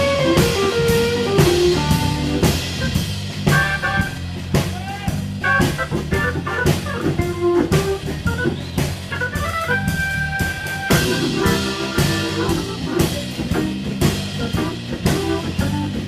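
A live rhythm and blues band playing an instrumental: drum kit keeping a steady beat under a lead melody line, with Hammond organ and electric guitar. About ten seconds in the lead holds one long high note.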